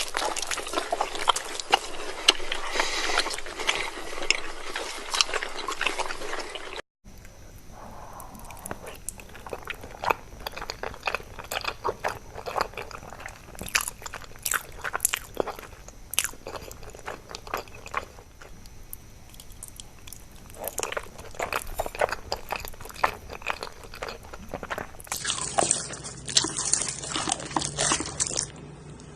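Close-miked eating sounds: crunchy bites and chewing, with dense crackles. The sound changes abruptly twice, about a quarter of the way in and near the end, as one eating clip cuts to another.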